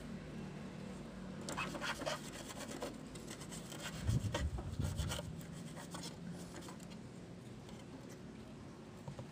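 Cloth rubbing and scrubbing over a circuit board in quick scratchy strokes, cleaning the freshly soldered chip's pins so that any solder bridges can be seen. A few dull knocks of the board being handled come midway, and the scrubbing stops a few seconds before the end.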